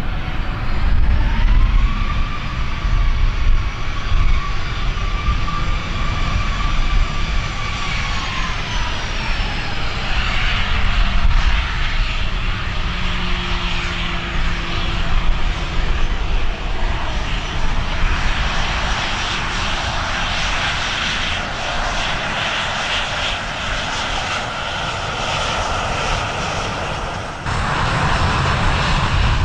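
Airliner engines passing: a whining tone rises, holds steady, then drops in pitch, followed by a broad rushing engine roar that builds. The sound changes abruptly near the end.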